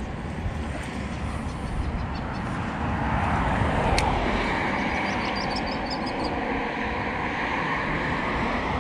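Road traffic crossing the bridge: a steady hiss of tyre noise that swells about three seconds in as a car passes, then holds.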